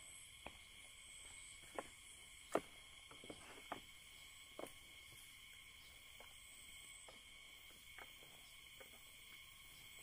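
Faint steady chorus of insects trilling at several high pitches, with a scattering of short sharp clicks, the loudest about two and a half seconds in.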